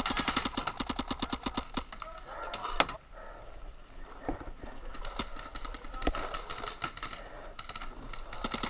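Paintball markers firing in rapid strings of shots, about ten a second: a loud burst over the first two seconds, then quieter, scattered volleys.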